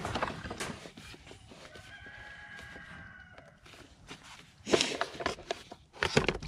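A rooster crows once, a single drawn-out call of about a second and a half starting about two seconds in. Near the end come sharp knocks and rattles as the brass ball valve is handled and fitted onto the tote's outlet adapter.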